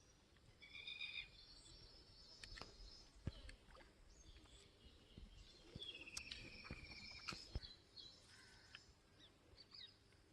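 Faint outdoor ambience with birds calling: a couple of short chirps about a second in, then a rapid, even trill lasting just over a second. A few sharp clicks or knocks are heard alongside.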